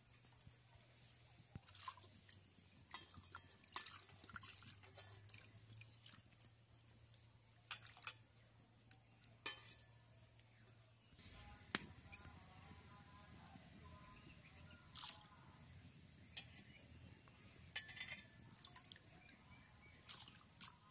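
Faint, scattered clinks and drips as soaked lentils and water are handled in a brass plate and a steel bowl, with water trickling from wet hands and lentils.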